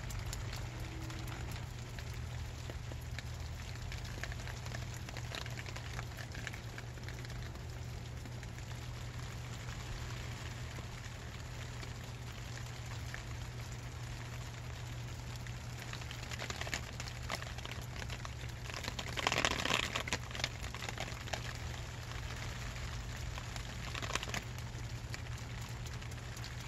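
Rain falling steadily, pattering on the plastic sheeting right over the microphone, with a steady low rumble underneath. The patter thickens briefly into a louder burst about two-thirds of the way through.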